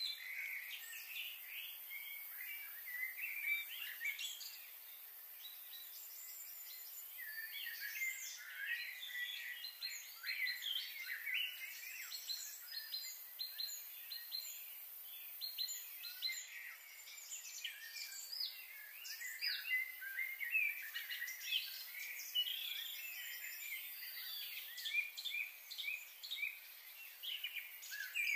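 A chorus of small birds chirping and trilling, many short calls overlapping, over a steady faint high hiss.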